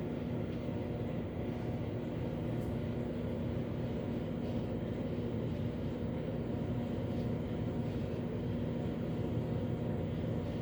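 Microwave oven running on its popcorn setting: a steady hum with a low drone, while the kernels in a fabric popcorn bag heat and none have popped yet.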